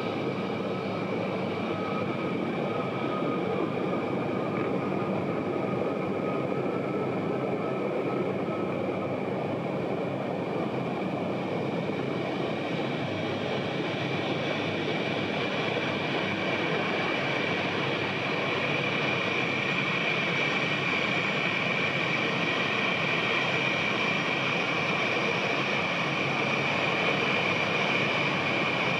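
Turbofan engines of an Embraer E-Jet airliner running at taxi power: a steady jet whine with a high held tone, growing louder in the second half as the aircraft taxies closer.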